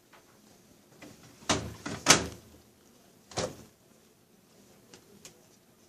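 Doors on display washing machines being handled and shut: three knocks about a second and a half, two and three and a half seconds in, the middle one loudest, then a couple of faint clicks.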